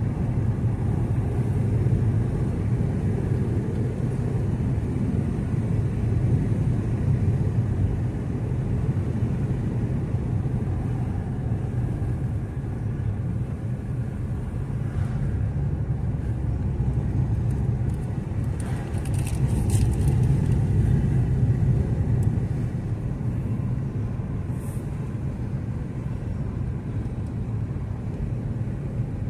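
A moving car heard from inside the cabin: a steady low rumble of engine and tyres on pavement, which swells briefly about two-thirds of the way in.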